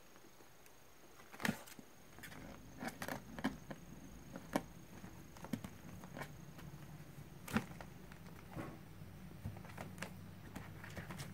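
Two kittens play-fighting in a cardboard box: irregular scratches, taps and scuffles of their claws and paws on the cardboard and newspaper, over a faint low hum.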